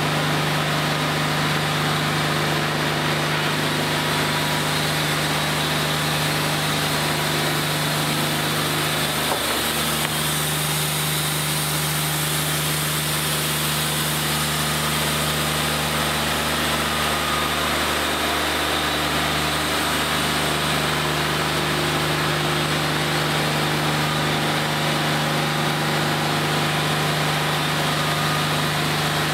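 Wood-Mizer LT40 hydraulic bandsaw mill running steadily while its band blade saws a squared cant, the engine note dipping briefly about nine seconds in and shifting through the middle of the cut.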